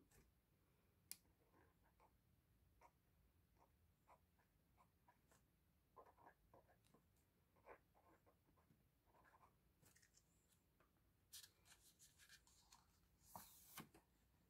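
Faint scratching of a pen writing on paper, in short scattered strokes that grow busier near the end, against near silence.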